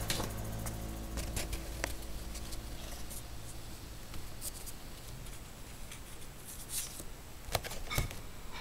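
Faint rustling and light clicks of paper and cardboard being handled, with a few sharper ticks near the end over a low hum.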